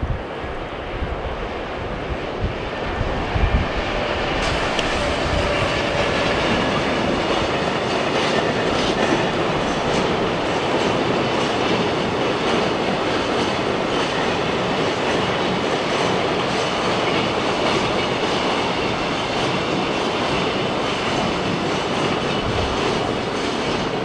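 A train passing on the JR Hokuriku Main Line, its wheels clacking over the rail joints in a steady rolling rumble that builds over the first few seconds and holds for the rest. Wind buffets the microphone at the start.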